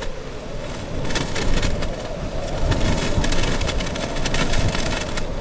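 Strong storm wind buffeting the microphone: a low rumble with irregular crackling that grows louder about a second in.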